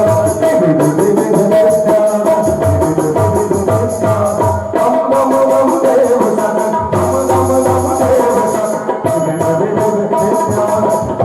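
Krishna bhajan music: drums and hand percussion keep a steady beat under held melodic tones.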